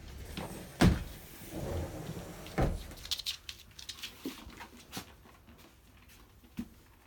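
Two loud knocks, nearly two seconds apart, with rustling between them and scattered light taps and clicks after, like something bumping against a cupboard or door in a small room.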